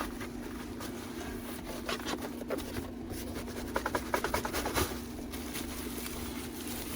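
Scattered light clicks, taps and scrapes of makeup organizer parts being handled during assembly, a cluster of them near the middle, over a steady low hum.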